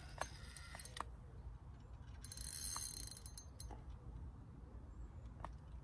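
Fishing tackle being handled, a spinning reel's mechanism clicking: a few separate sharp clicks, with a short rattling hiss about two seconds in.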